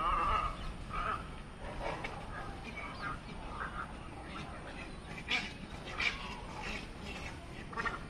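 Egrets calling from a treetop roost: scattered short, harsh croaking squawks, with two sharper calls about five and six seconds in, over a steady low rumble.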